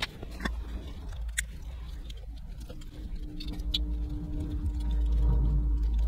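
Small clicks and rustling as the car's electrical wiring connectors are handled and plugged back together, under a low rumble that grows louder towards the end. A faint steady hum joins about three seconds in.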